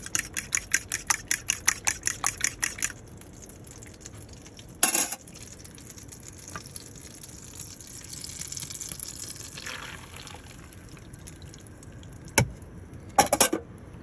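Fork beating eggs in a ceramic bowl, about six quick clicks a second for the first three seconds. Then a clunk, a faint sizzle of butter in a frying pan on a gas hob, and near the end a knock and a short clatter of crockery.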